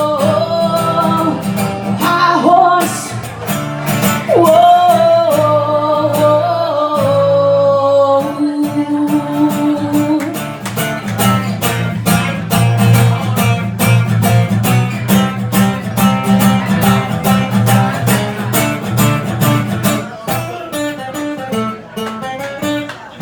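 Live country song ending: a wordless, held 'whoa' is sung over strummed acoustic guitar for the first several seconds, then the guitar strums on alone and thins out near the end.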